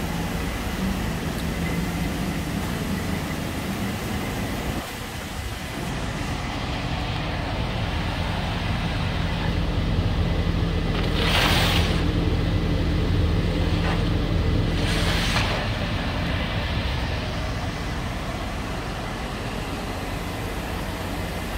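2008 Nissan Rogue's 2.5-litre four-cylinder engine idling steadily, heard around the car and close to its tailpipe. Two short rushes of noise break in about halfway through.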